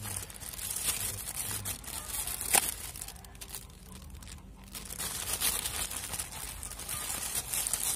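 Plastic courier mailer bag being crinkled and pulled open by hand: irregular crackling and rustling, with one sharp crack about two and a half seconds in.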